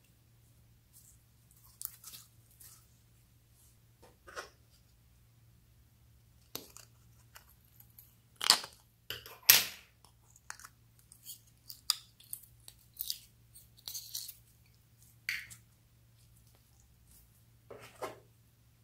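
Hands working clear slime and a small plastic slime container: scattered short sticky crackles and clicks, the two loudest snaps about eight and a half and nine and a half seconds in.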